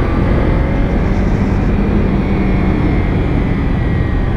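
Kawasaki Ninja 300 motorcycle's parallel-twin engine running at a steady cruise, with heavy wind rumble on the microphone from riding.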